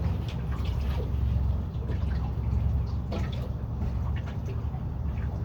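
Steady low hum of a boat motor running slowly, with small splashes and drips of water over it.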